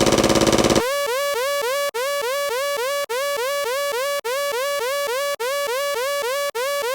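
Electronic sound effect: a rapid buzzing rattle for under a second, then a synthesized tone that slides up and holds, repeated about six times at roughly one-second intervals.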